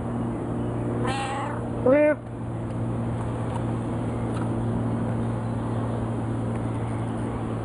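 Tabby cat meowing twice, about a second and two seconds in, the second call louder and rising then falling in pitch. A steady low hum runs underneath.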